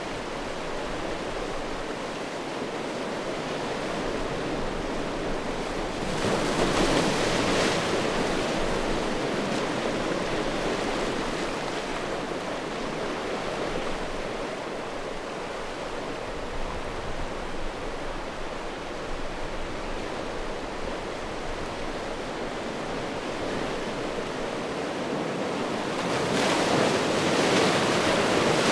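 Sea waves washing in over a shore of rounded stones: a steady surf hiss that swells twice as a larger wave breaks, about six seconds in and again near the end.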